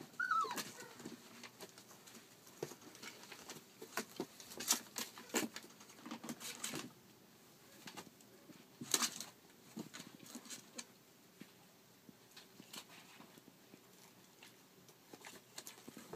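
Five-week-old rough collie puppies playing: a brief high whine right at the start, then scattered clicks, scrabbles and knocks of paws and bodies on wooden boards and a plastic pet carrier, busiest in the first half.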